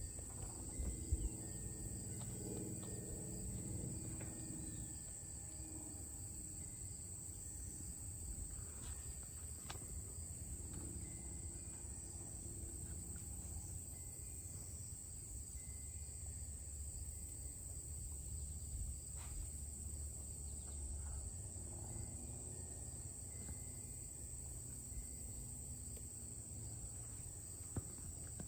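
A steady, high-pitched chorus of insects singing, even throughout, over a low rumble. A couple of faint knocks sound about a second in and again near the end.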